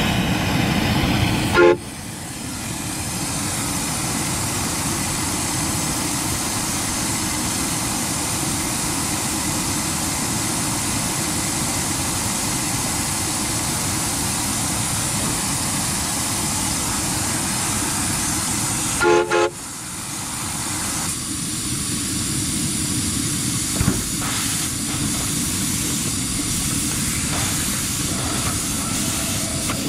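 Live-steam Mogul locomotive running with a steady hiss. Its whistle gives a short toot about a second and a half in, and two quick toots about two-thirds of the way through.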